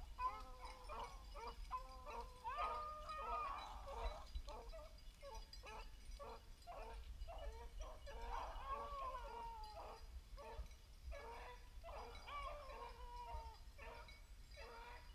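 A pack of beagles baying faintly while running a rabbit: a string of short chop barks broken by longer, drawn-out bawls that bend in pitch.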